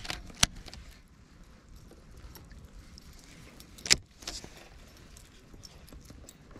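Two sharp clicks about three and a half seconds apart, over faint rustling.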